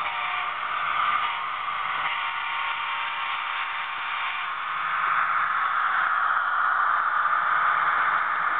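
HO scale model train running, its Union Pacific SD70ACe model locomotive's onboard diesel sound playing through a small speaker along with the running noise of the train on the track. It grows louder from about halfway through as the train comes close.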